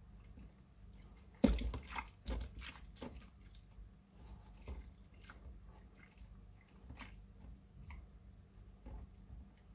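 Soaked glycerin soap plates being washed and squeezed by hand, making wet squishing and dripping sounds. A sharp squelch comes about a second and a half in, with a few more over the next two seconds, then softer scattered squishes.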